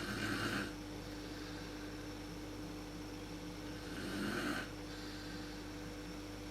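A sleeping woman snoring: two short snores about four seconds apart, one at the start and one about four seconds in, over a steady faint hum.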